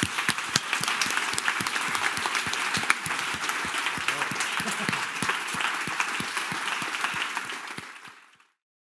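Audience applauding, a dense patter of clapping that fades out about eight seconds in and is followed by silence.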